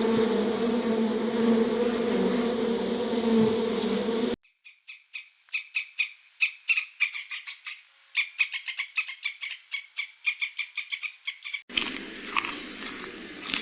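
A steady buzzing drone for about four seconds, then an abrupt cut to a long run of quick, sharp chirping animal calls, several a second, and about two seconds before the end a cut to a noisier stretch with a few faint calls.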